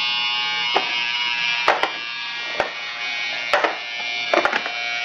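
A steady electric buzz with many overtones, like a small motor running, with about eight light clicks and knocks scattered through it as items are handled.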